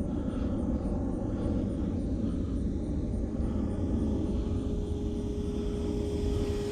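E-flite Power 60 electric motor and propeller of a Seagulls Cessna 152 RC model in flight, a steady hum that grows louder near the end. Under it runs a constant low rumble from a jet in the background.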